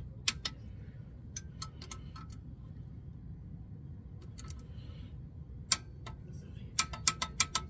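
Ratchet of a torque wrench clicking in short runs as it is swung back and forth, tightening the oil pump bolts to 204 inch-pounds; a quick string of clicks near the end.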